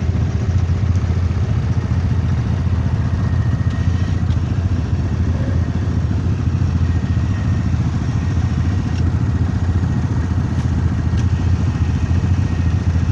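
Quad bike (ATV) engine running steadily at low, even revs, with no clear revving up or down.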